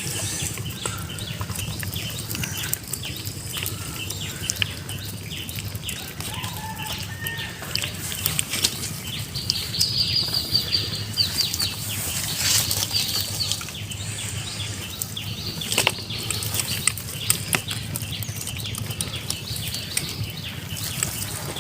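Caught fish flapping: a long run of quick, irregular fluttering slaps over a steady low hum.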